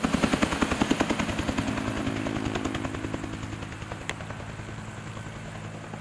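Helicopter flying, its rotor blades beating rapidly and evenly, growing steadily fainter as it moves away.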